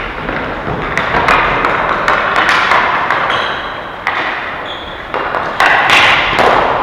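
Ball hockey play: irregular knocks and taps of sticks and the plastic ball hitting sticks and the boards, several sharp cracks standing out over the background noise.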